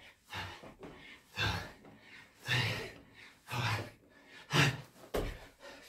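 A man's heavy, gasping breaths, about one a second, from the exertion of a long set of burpees with push-ups.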